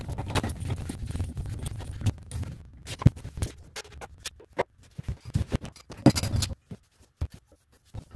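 Irregular scraping, rubbing and light knocks of hands working at a bathroom vanity sink, with a sharper knock about three seconds in.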